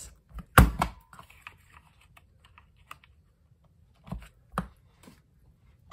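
Handheld plastic trio corner punch clacking as it is pressed down to punch the corners of a card panel: a sharp clack about half a second in, and two smaller clicks around four seconds in.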